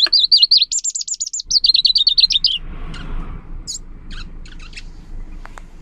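Caged leaf warbler singing one rapid trilled phrase of about two and a half seconds: quick crisp notes, a higher run in the middle, then a falling run. A few short scattered notes and clicks follow over a soft rustling noise.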